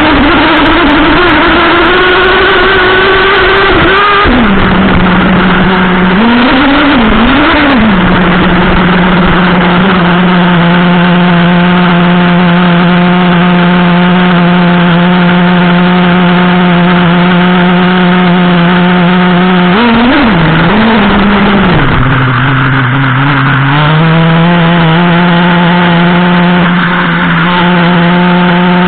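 Traxxas Revo 3.3's two-stroke nitro engine, heard up close. It revs with a rising pitch for the first few seconds, then idles steadily, with short throttle blips about six and twenty seconds in. A little after twenty seconds the idle drops lower for a couple of seconds, then settles back.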